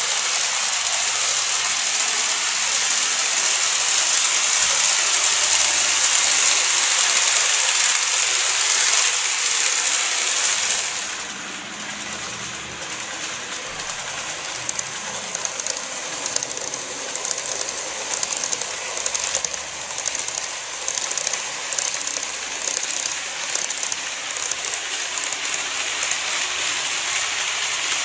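Model railway train running on its track: a steady hiss of wheels and motor while it passes close. About eleven seconds in, this drops suddenly to a quieter running sound with irregular clicking.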